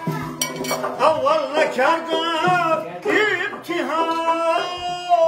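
A man singing a folk song in a wavering, ornamented voice, with held notes, accompanied by a plucked long-necked lute and a frame drum.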